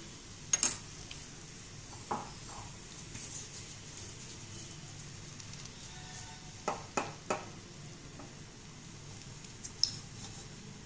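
Oiled methi thepla flatbread frying on a flat tawa griddle with a faint, steady sizzle, broken by a few soft clicks, three of them close together about seven seconds in.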